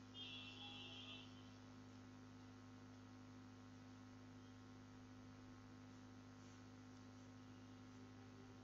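Near silence: a steady low electrical hum on the recording, with a faint brief high-pitched sound in the first second.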